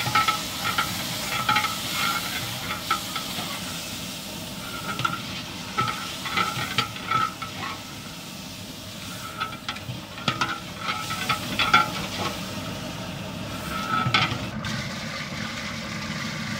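A long metal ladle stirring and scraping around a large aluminium degh with irregular clinks, while the onion-and-spice masala sizzles in hot ghee and gives off steam.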